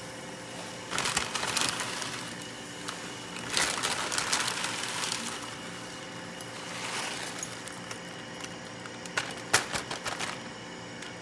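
Bundles of dried rice vermicelli lowered into a pan of boiling water: several bursts of crackling and crunching as the brittle noodles go in, the sharpest about nine and a half seconds in. A steady hum runs underneath.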